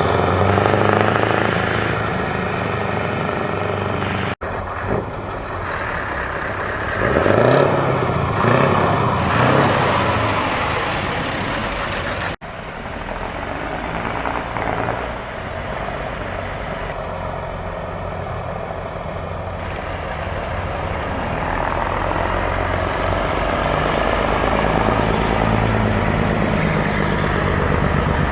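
Heavy trucks with open, straight-piped exhausts running and revving, in several short clips cut together; one rev rises and falls in pitch about seven to nine seconds in.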